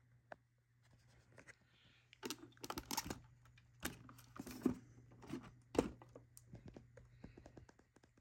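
Handling noise as a 1:18-scale model car is turned over and set down on a styrofoam packing tray: a quick run of faint clicks, taps and rustles, with the loudest knock about six seconds in.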